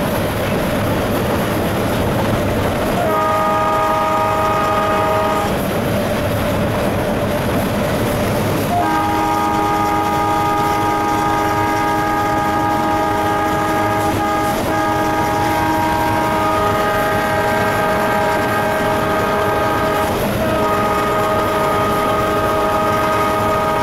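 Alco WDM3D diesel locomotive's horn sounded over the steady noise of the engine and wheels on rail at speed, heard from inside the cab. A short blast comes about three seconds in; a long blast starts about nine seconds in, breaks briefly and shifts in tone as it runs on.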